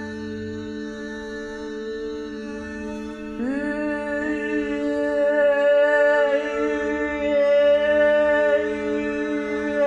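Woman's voice humming a long sustained 'L' sound, the Feldenkrais exercise of voicing with the tongue tip against the upper lip. A steady held tone is joined about three and a half seconds in by a louder note that slides up into place, and its tone shifts as the mouth opens and closes.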